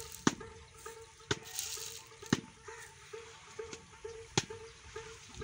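Fertilizer granules flung by hand from a bowl, pattering and rustling onto red napier grass and the dry ground, with a brief rush of hiss about one and a half seconds in and sharp clicks roughly once a second. A short, mid-pitched note repeats steadily underneath.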